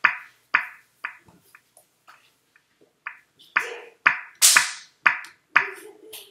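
A child making a rhythmic percussive beat: sharp clicks about two a second, thinning out for a couple of seconds in the middle, then picking up again with one long hissing burst.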